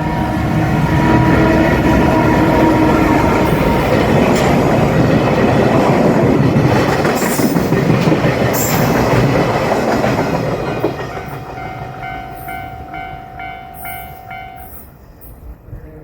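Freight train hauled by an EF210 DC electric locomotive passing over the level crossing, its wheels clattering loudly for about eleven seconds before the sound falls away. As it fades, the crossing bell is heard ringing in a steady rhythm of about two strokes a second, stopping near the end.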